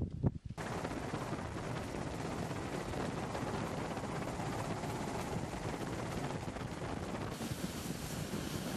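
A few sharp pops, then a steady rushing drone of aircraft cabin noise, which turns brighter and hissier near the end.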